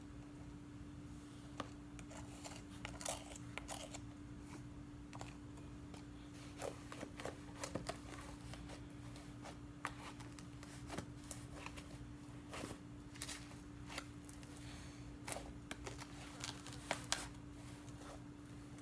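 Slime being mixed and kneaded by hand with cloud slime powder, giving scattered soft crackles and sticky clicks at irregular intervals, over a steady low hum.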